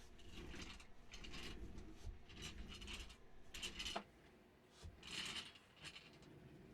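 A chair creaking faintly in a string of short, irregular creaks about a second apart as someone shifts their weight in it.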